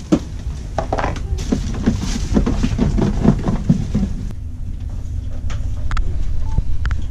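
Rubbish being sorted by hand into a plastic bin, with packaging rustling and knocking for about four seconds. Near the end come a few clicks from a fridge door, all over a steady low hum of the ship's machinery.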